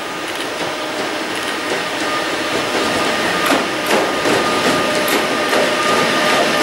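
Bombardier Traxx E186 electric locomotive hauling loaded tank wagons, approaching and passing close by. It gives a steady electric whine and a rising rumble, with a few sharp knocks from the wheels over the rail joints in the middle.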